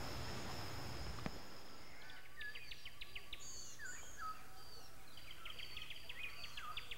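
Faint dawn birdsong: several birds chirping and giving short whistles, with quick runs of rapid notes, over a low background hiss. Just over a second in, a brief click marks where an earlier steady hiss with a thin high tone gives way to the birds.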